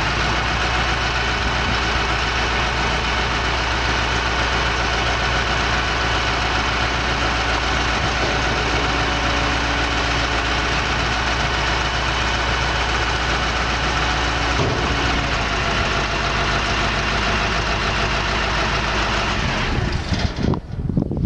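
Bobtail dump truck's diesel engine running steadily, then shut off near the end, leaving a few scattered knocks.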